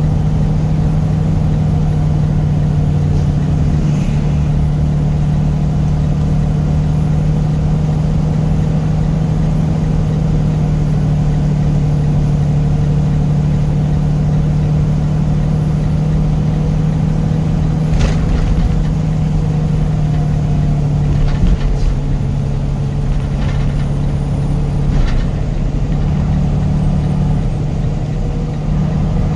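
A vehicle driving at a steady speed: a constant engine hum with low road rumble, and a few short clicks or knocks in the second half.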